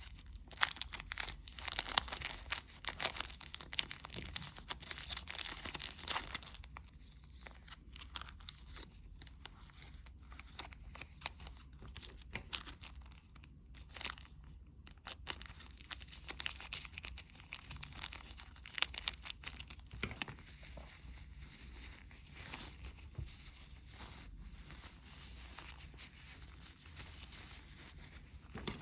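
Crinkling, tearing and rustling of items being handled, with scattered clicks. It is dense for about the first six seconds, then sparser.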